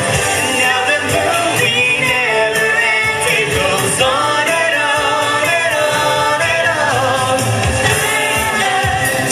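Music with several voices singing together, continuous and fairly loud.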